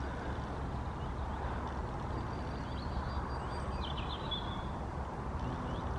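Steady low outdoor background rumble, with a few faint bird chirps about two to four seconds in.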